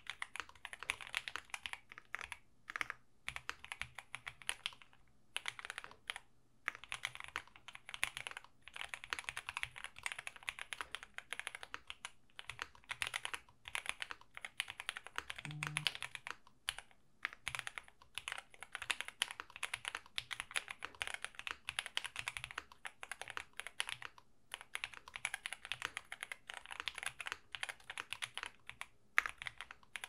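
Fast continuous typing on an Owlab Mr. Suit gasket-mount TKL mechanical keyboard fitted with Lavender switches: a quick stream of keystrokes several a second, broken by a few brief pauses.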